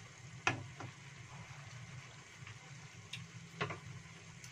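A few sharp clicks of a spatula knocking against the wok, one about half a second in and more near the end, over a faint steady low hum from the stove.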